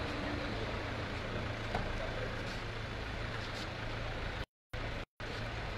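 Steady low rumble of a vehicle engine running close by, with faint voices in the background; the sound cuts out twice, briefly, near the end.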